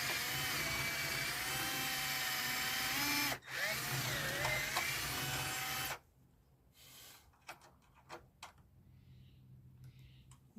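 Power drill drilling out a rivet, its motor whine wavering in pitch under load. It stops briefly about three and a half seconds in, runs again, then stops about six seconds in, followed by faint clicks of handling. The bit is too small to pop the rivet head off.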